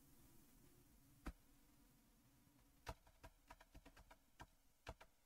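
Near silence with a handful of faint, scattered computer keyboard keystrokes, a few in quick succession just past the middle.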